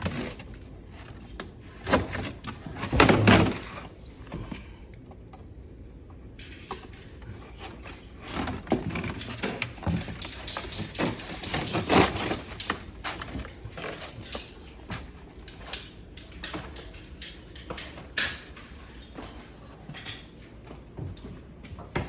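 Irregular knocks, clicks and clatter of objects being handled and set down, with the loudest cluster about three seconds in and another near the middle.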